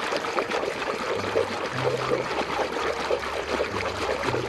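Water splashing and trickling as a muddy toy vehicle is scrubbed and rinsed by hand in a basin of water.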